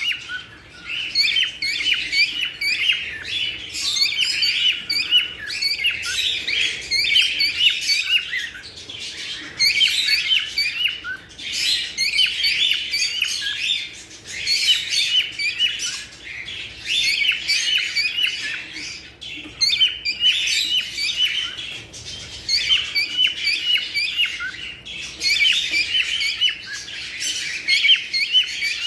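A group of cockatiels chirping and chattering, many short overlapping calls in spells of a few seconds with brief lulls between them.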